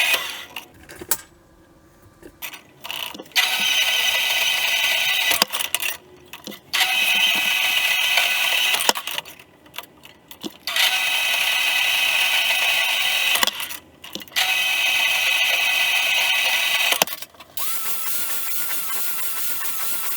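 A power tool running in bursts of two to four seconds, stopping briefly between each. Near the end a different, steadier running sound with a wavering whine takes over.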